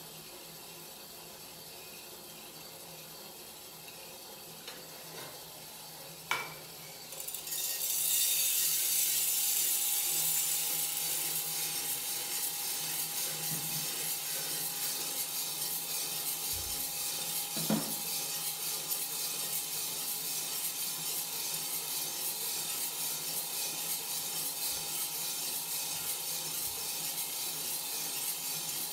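A few light clicks, a sharper click about six seconds in, then a steady loud rasping hiss about a second later that keeps going, with one clank partway through: a Kaldi Mini drum coffee roaster starting up and running over an Iwatani 35FW butane burner.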